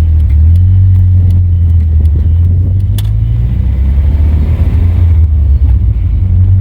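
Volvo car driving, heard from inside the cabin: a steady low engine and road rumble with a few faint clicks.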